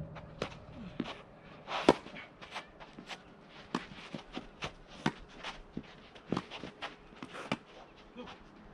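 Tennis rally in doubles: rackets striking the ball and the ball bouncing, with players' footsteps on the artificial court in between, making an irregular string of sharp pops and taps. The loudest hit comes about two seconds in.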